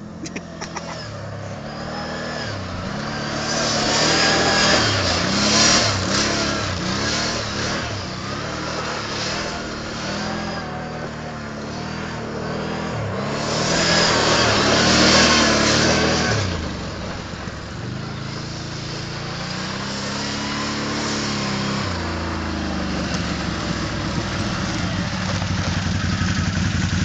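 Can-Am Outlander Max 800 XT-P quad's Rotax V-twin engine revving up and down over and over as the quad spins and slides on loose dirt, with two loud full-throttle surges, the second the loudest. Near the end it settles into a steady, even note close by.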